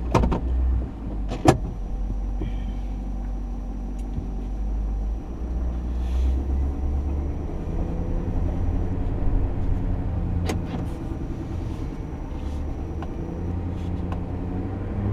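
Truck driving, heard from inside the cab: a steady low engine and road rumble, with a few sharp knocks, the loudest about a second and a half in and another near ten seconds.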